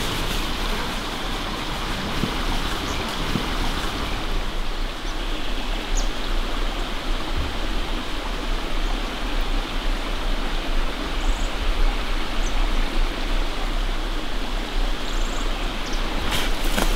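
Steady rush of running water, with a few light crackles near the end.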